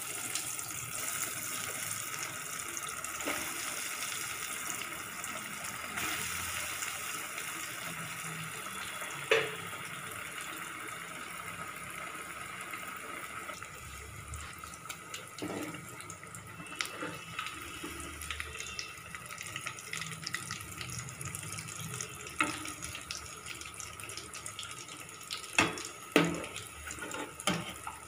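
Breaded soya chunk cutlets deep-frying in hot oil in an aluminium kadhai, a steady sizzle. A few sharp metallic clinks of a steel slotted spoon against the pan come near the end.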